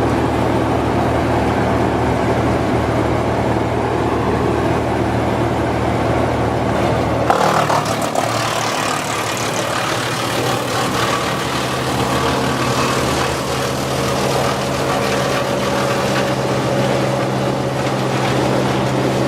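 Heavy diesel machinery engine running steadily. About seven seconds in the sound cuts abruptly to a different engine running, with more hiss.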